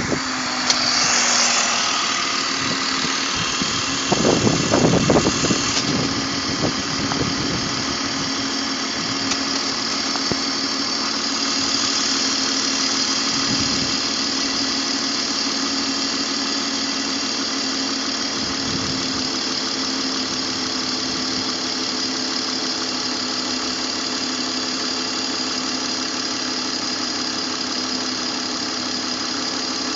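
BMW M54 straight-six engine idling steadily, having just started, with a brief louder rumble about four seconds in.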